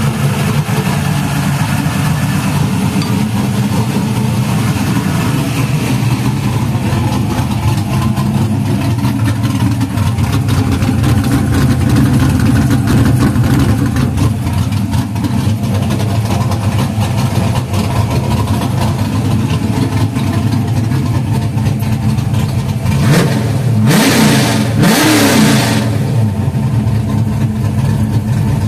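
V8 engine running through an open 3-inch catted X-pipe with no mufflers: a loud, steady idle, then two quick revs a little over twenty seconds in.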